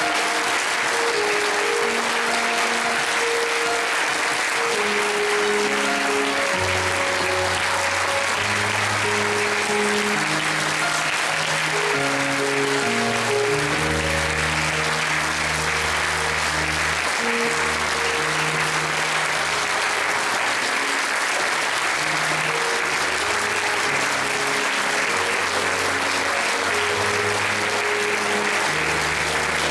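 Sustained audience applause over music, with low bass notes coming in about seven seconds in.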